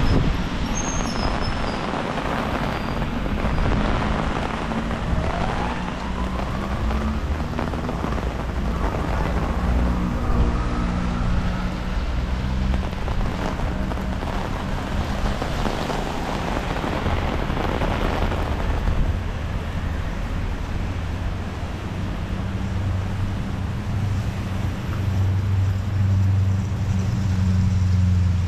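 Wind buffeting the microphone: a steady rumbling hiss, with a low hum that grows stronger near the end.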